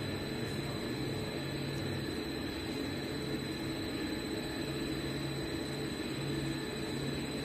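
Motor-driven mixer running with its agitator shaft turning: a steady machine hum that swells and fades about once a second, under a thin, steady high whine.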